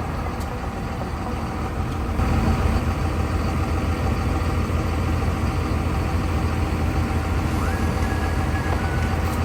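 An engine idling, a steady low rumble that gets louder about two seconds in. A short steady high tone sounds for about a second near the end.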